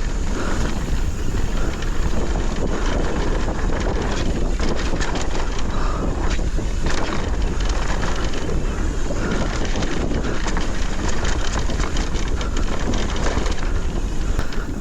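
Wind buffeting the microphone on a moving electric mountain bike, a steady loud rumble, with many short clicks and rattles from the bike riding over the ground.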